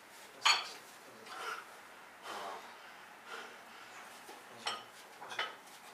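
Loaded barbell and its iron plates clinking during prone bench rows, one loud sharp clink about half a second in and two more near the end, with breaths between.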